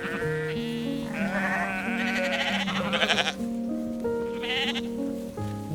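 Sheep bleating over background music: one long, quavering bleat, then a shorter one near the end.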